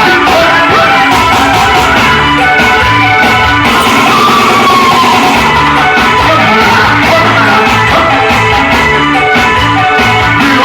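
Very loud music with singing, played through a paredão, a Brazilian car-mounted sound wall.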